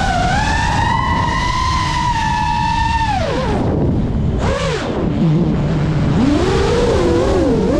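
FPV drone's electric motors whining, the pitch held high for about three seconds, then dropping sharply, dipping low around five seconds in and climbing and wavering again, over a low rumble.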